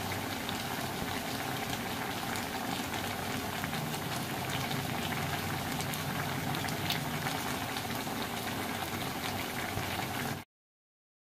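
Pinakbet vegetable stew simmering in a metal pot: a steady bubbling and sizzling with many small pops and crackles over a low hum. It cuts off suddenly near the end.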